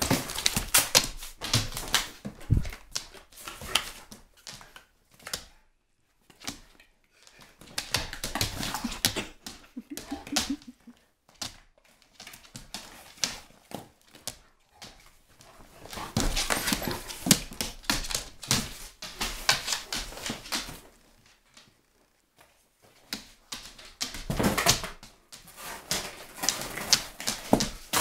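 A German shepherd tearing and chewing a cardboard box: bursts of rapid crackling rips and crunches of cardboard, four spells of a few seconds each with short pauses between.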